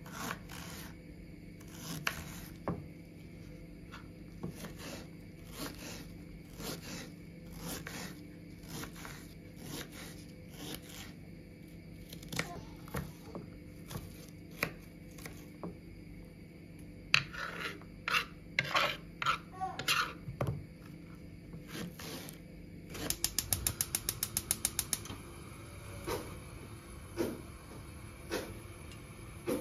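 Small kitchen knife chopping an onion on a wooden cutting board: intermittent light knocks of the blade on the board, coming thicker for a few seconds past the middle. Near the end comes a quick, even run of clicks, then a few light knocks and scrapes of a wooden spoon in a metal frying pan as butter is spread.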